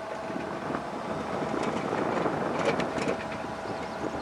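Steady running noise of a moving vehicle with a faint constant hum, and a few light clicks or rattles about two and a half to three seconds in.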